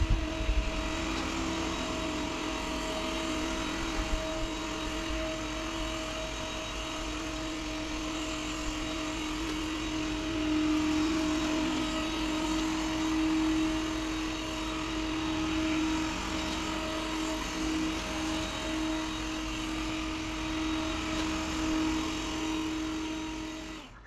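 Yeedi K760x robot vacuum running at maximum suction on a laminate floor: a steady motor drone with a held hum and hiss, a little louder around the middle of the run.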